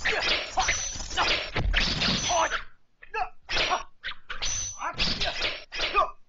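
Dubbed kung fu film fight sound effects: a rapid string of whacks and swishes mixed with shouted grunts, with a brief lull about three seconds in.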